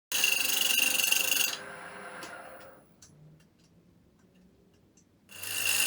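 Wood lathe work on a spinning wooden blank: a loud scraping or cutting noise with a steady high whine that dies away after about a second and a half, a few light ticks, then the loud cutting noise starting again near the end.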